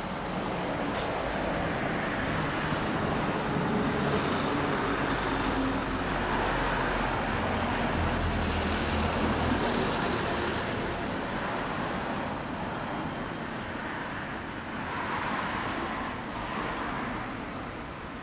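Kawasaki motorcycle engine idling, with a steady low hum that grows louder a few seconds in and eases off toward the end, along with road traffic.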